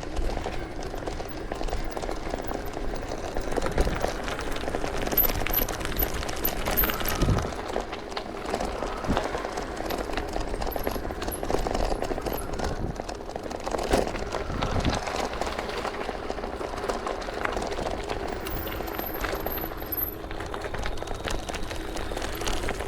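Bicycle ridden along a dirt trail: steady tyre noise on rough ground with the bike rattling and knocking over bumps.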